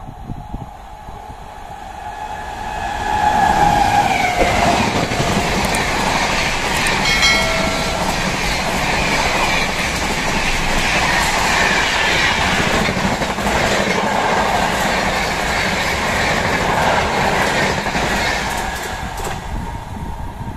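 WAP7 electric locomotive and LHB passenger coaches passing at high speed. A rush builds about three seconds in, then a steady loud rumble and clatter of wheels on rail as the coaches go by, easing off near the end. A brief horn note sounds about seven seconds in.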